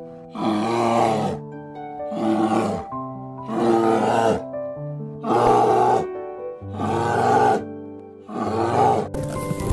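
Brown bear growling: about six rough calls, each under a second long and roughly a second and a half apart, over background music. Just before the end the growls stop and a different hissing sound takes over.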